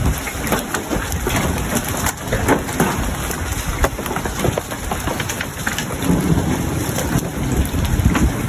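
Hail falling steadily: a dense patter of hailstones with many sharp separate hits throughout.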